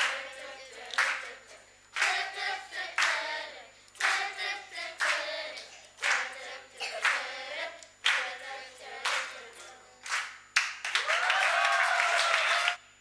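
Children's choir singing while clapping along on a steady beat, about one clap a second. Near the end the clapping turns into a quick flurry of applause under one long held voice, then everything cuts off abruptly.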